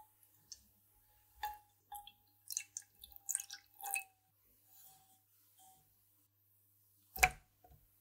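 Water and then milk poured into a nonstick saucepan: scattered splashes and drips over the first few seconds, with a faint ringing tone carrying between them. A single sharp knock about seven seconds in is the loudest sound.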